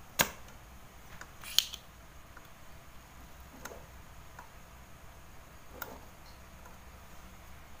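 A handful of sharp, separate clicks and snaps from hand tools working on a TV's main board as the jumper on the B+ supply line is cut. The two loudest come within the first two seconds.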